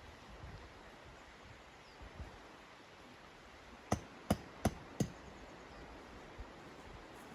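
Four sharp knocks in quick succession, about a third of a second apart, over a steady faint hiss.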